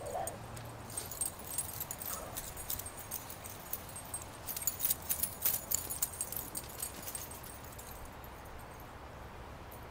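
Small dogs playing and chasing on grass, with rapid light metallic jingling of collar tags that fades out about six and a half seconds in. A faint yip sounds at the start and again about two seconds in.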